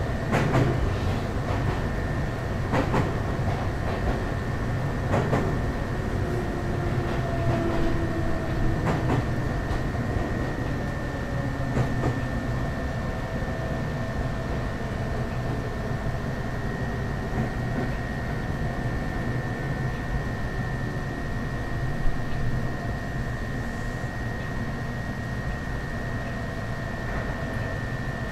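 A Ryutetsu 5000 series electric train running between stations as it approaches Hiregasaki, heard from inside the car. There is a steady rumble of wheels on rail with a thin, steady high whine throughout, and a few rail-joint clicks in the first dozen seconds. A single sharp knock comes about 22 seconds in.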